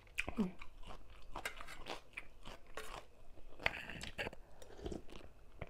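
Close-up chewing and crunching of mouthfuls of tam sua, a spicy Thai papaya salad with rice noodles and raw vegetables, in irregular crisp crunches.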